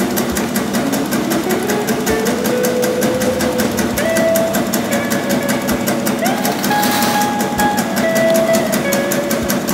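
Background music with a sung melody, over a fast, even ticking.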